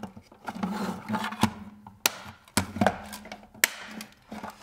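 Handling noise from a snap-together plastic robot chassis, with about five sharp clicks and knocks as it is turned over and set down on a wooden tabletop, and light rubbing between them.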